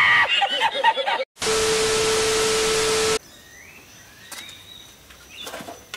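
A man's wild, cackling laughter for about a second, then a brief cut. Next comes nearly two seconds of loud static hiss with a steady beep-like tone, which stops suddenly. After that there is faint outdoor ambience with a few short rising bird chirps.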